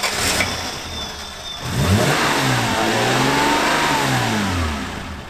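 Off-road vehicle engine revving hard: it climbs in pitch about two seconds in, holds high, then drops back near the end, as a vehicle works to get unstuck in snow.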